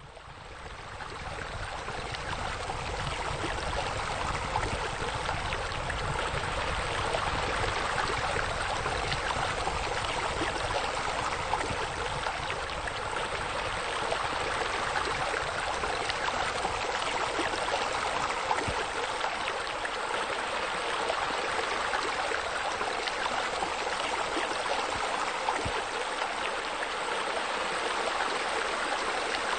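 Steady splashing of a rock waterfall spilling into a swimming pool, fading in over the first couple of seconds and then holding even.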